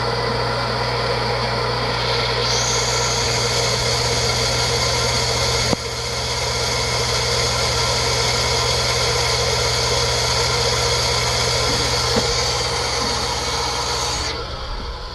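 Goulds water pump's electric motor running steadily with a hum while it pumps against the turned-off water, building pressure as the pressure switch fails to cut it off. A high hiss joins about two seconds in, there is a sharp click near six seconds, and the hiss stops abruptly near the end.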